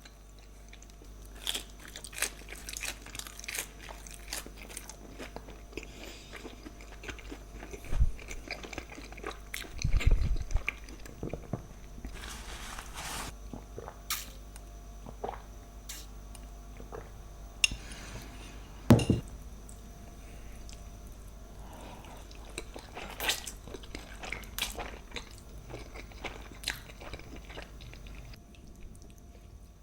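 Close-miked eating sounds: crunchy bites and chewing, full of small clicks and crackles. A few low thumps stand out, the loudest about two-thirds of the way in.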